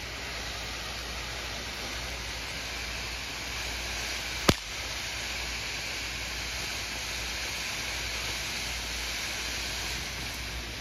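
Silent Insanity ground fountain firework spraying sparks with a steady hiss, and one sharp crack about four and a half seconds in.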